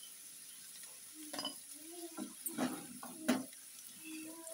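A spatula stirring and scooping turmeric-coated taro (gathi kochu) pieces frying in a non-stick kadai, with a few short scraping knocks against the pan over a light sizzle.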